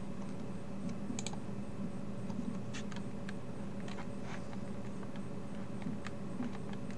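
A few faint, scattered computer keyboard and mouse clicks, irregularly spaced, over a steady low electrical hum.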